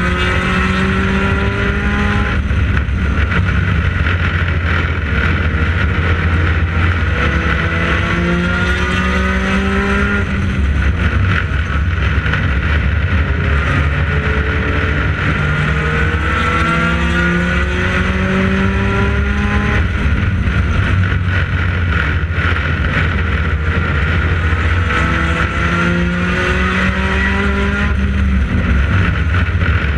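U-car race car's engine running hard at racing speed, its pitch climbing steadily for several seconds, then dropping back, about every ten seconds, over steady road and wind noise.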